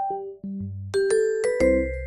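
Background music: a light tune played on glockenspiel-like bell tones over a bass line, pausing briefly and starting up again about a second in.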